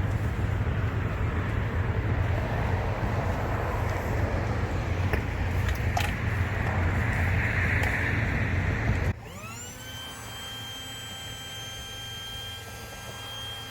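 Electric air pump running steadily with a low motor hum while inflating an airbed, stopping abruptly about nine seconds in. After that only a quieter, steady high-pitched ringing is left.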